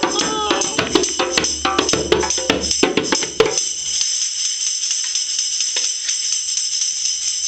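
Tambourine being played: a run of quick strikes and shakes, then about three and a half seconds in it settles into a steady shimmering jingle.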